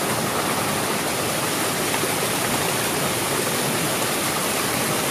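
Small garden waterfall cascading over rocks: a steady rush of falling water.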